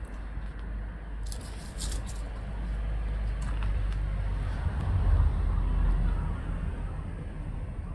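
Low rumble of passing road traffic, swelling to its loudest about five seconds in and then easing off, with a brief high rustle a second or two in.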